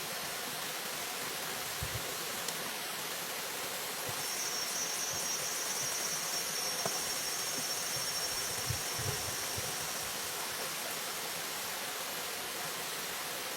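A steady rushing noise like running water, with an insect trilling high and fast for about six seconds in the middle. A few soft low knocks are heard.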